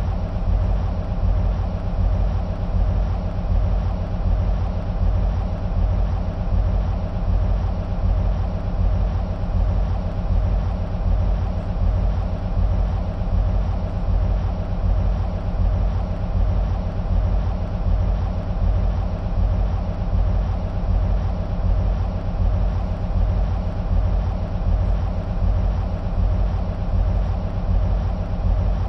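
EMD SW1500 switcher locomotive's 12-cylinder two-stroke EMD 645 diesel idling steadily: a deep, even rumble with a slight regular pulse.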